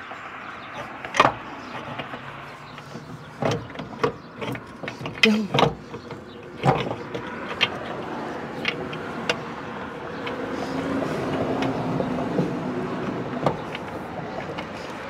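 Steel-on-steel clanks and knocks as tow truck boom cylinder parts are worked back into place by hand, with a string of sharp hits in the first seven seconds and only scattered ones after. A passing vehicle's rumble swells and fades in the second half.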